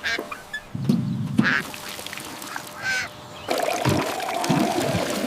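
A duck quacking in short calls, three times over the first three seconds, then a steady rush of poured, splashing water for the second half.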